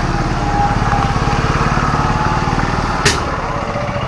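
Hero Splendor Plus BS6 motorcycle's single-cylinder four-stroke engine idling steadily, with a sharp click about three seconds in.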